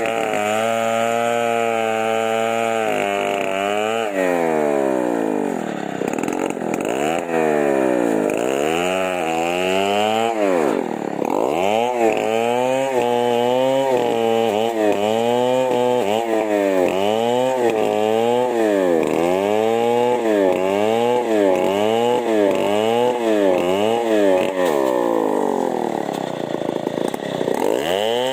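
Chainsaw engine running steadily at first, then revved down and up over and over, about once a second, before settling to a steady run again near the end.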